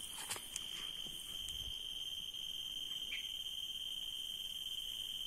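Steady high-pitched insect drone, one unbroken tone, with a few faint clicks about a quarter second in.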